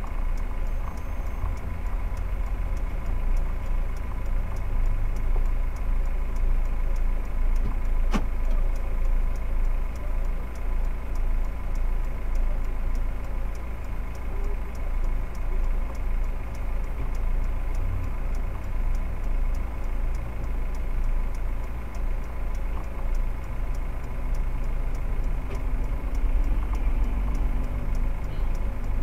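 Car engine idling, heard from inside the cabin as a steady low rumble, with faint regular ticking and one sharp click about eight seconds in.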